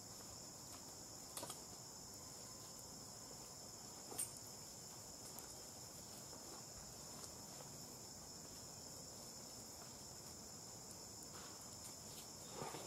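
Steady high-pitched insect chorus, crickets or similar, with a couple of faint clicks about one and a half and four seconds in.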